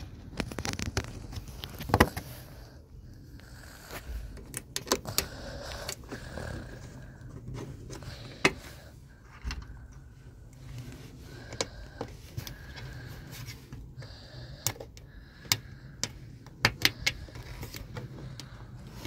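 Plastic engine-bay cover being pressed back into place by hand: irregular clicks and knocks of the plastic panel and its clips seating.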